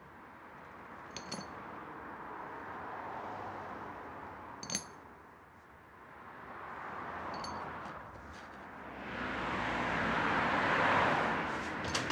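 Three light metallic clinks of small metal items a few seconds apart over a steady hiss. A broad rush of noise swells and fades near the end.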